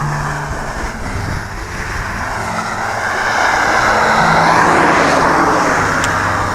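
A vehicle passing by: a rush of noise that swells to its loudest about four to five seconds in, then begins to fade.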